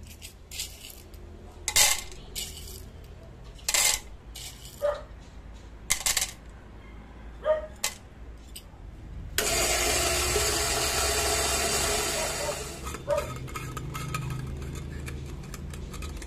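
Whole roasted coffee beans clattering from a metal measuring scoop into a cup on a kitchen scale, heard as a string of separate sharp clinks. A little past the middle comes a denser, louder rattle lasting about three seconds.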